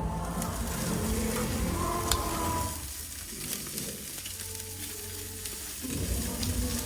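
Chicken leg quarters sizzling on a grill over hot charcoal: a steady crackling hiss with a few sharp pops.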